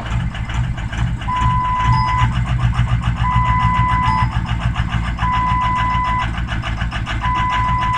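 Ford 6.0L Power Stroke V8 diesel idling with a steady clatter, weak cylinder 6 dragging on the power balance, which the mechanic takes for a bad injector. Over it the truck's airbag warning chime beeps four times, each beep about a second long and two seconds apart, a sign the airbag system is reporting a fault, which the mechanic thinks could just be a burnt-out airbag light bulb.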